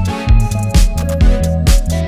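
Background music with a steady beat of about two strikes a second: an electronic track with drums and bass.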